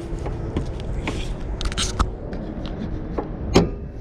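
Hand groping under the front edge of a pickup truck's hood for the safety catch: scrapes and light clicks of fingers on the latch and trim, then a sharp clack near the end as the catch lets go and the hood is lifted.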